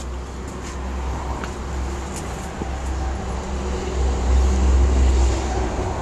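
Wood fire roaring in a brick furnace under forced air from an inflatable-castle blower: a steady low rumble and rush with a few sharp crackles from the burning wood. The rush swells about four seconds in as the flames flare up.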